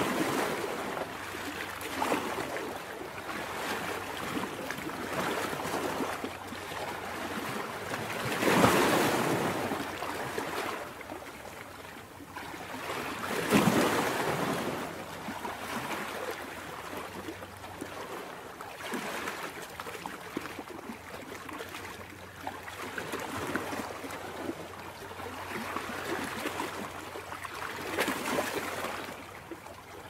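Ocean surf: waves breaking and washing ashore as a steady rush that swells and ebbs every few seconds, with a few louder surges.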